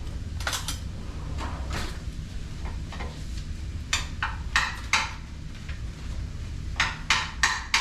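Ground beef and onion sizzling in a frying pan while a utensil scrapes and knocks against the pan in short strokes, in clusters near the start, midway and near the end.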